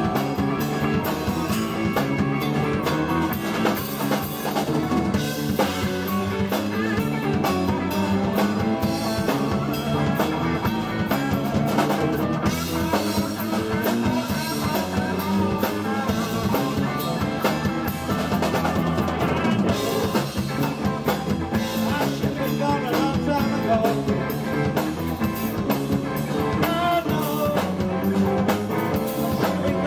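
Live blues-rock band playing: electric guitar through a Marshall amp over a drum kit, with steady driving rhythm throughout.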